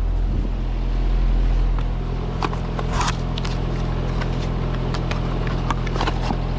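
Trane XR heat pump outdoor unit running with a steady electrical hum, its compressor not starting, which the technician puts down to a bad run capacitor. Sharp clicks and knocks of parts being handled come a few times in the second half.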